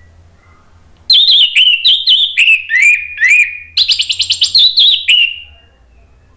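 Orange-headed thrush singing a loud, full-voiced burst of song about a second in. It is a quick run of sharp notes that each sweep downward, with a fast rattling trill in the middle, and it lasts about four seconds before stopping.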